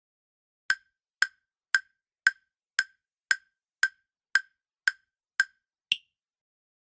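Quiz countdown-timer sound effect: eleven crisp ticks, about two a second, the last one higher in pitch as the answer time runs out.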